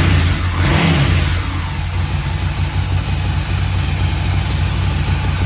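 Ducati Scrambler 800's 803cc V-twin running in neutral, with a short blip of the throttle about a second in, then a steady idle.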